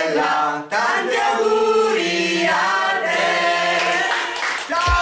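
A group of voices singing together in harmony on long held notes, breaking off briefly about a second in. Near the end a drum beat comes in as music starts.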